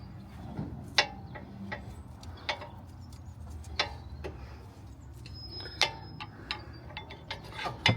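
Sharp metallic clinks and taps, about five of them a second or two apart, from tools and brake parts being handled on a van's front brake caliper.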